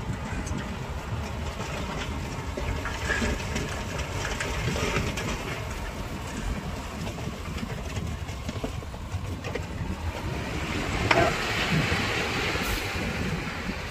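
Heavy construction machinery working: a steady low engine rumble with scattered clanks and rattles, and one sharper knock about eleven seconds in.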